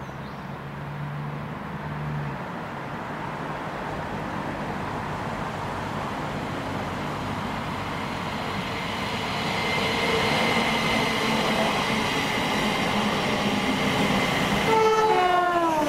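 Class 717 electric multiple unit approaching and passing, its wheel and running noise growing louder, with a steady electric whine from about ten seconds in. Near the end a set of whining tones glides downward in pitch.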